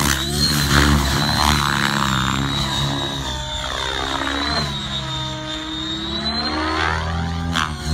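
Align T-REX 700E DFC electric RC helicopter in flight: a steady rotor hum with a high, thin whine over it, swelling and fading slightly as the helicopter moves about the sky.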